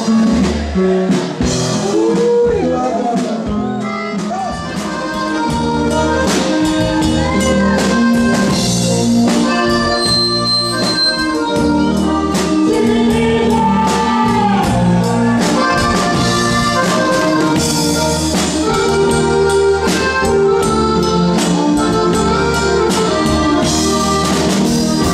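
Live norteño band music: a keyboard playing the melody over drums and bass, with a steady beat.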